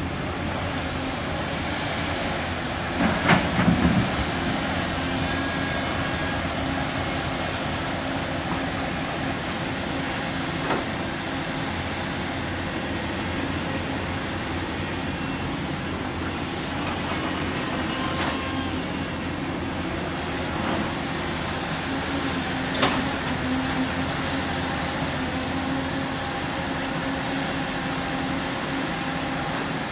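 Volvo crawler excavator's diesel engine running steadily as it digs, with a cluster of loud clanks from the bucket and rock about three seconds in and single sharp knocks near the middle and about two thirds of the way through.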